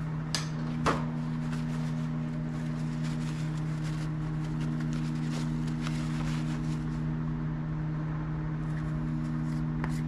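Microwave oven running with a steady electric hum. Two light knocks come within the first second, then soft rustling as a paper towel and a plastic jar are handled.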